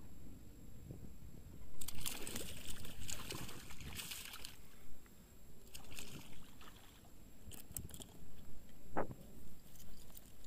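A hooked pike thrashing at the water's surface: bursts of splashing about two seconds in, lasting a couple of seconds, and again around six seconds, with a few short splashes or clicks later.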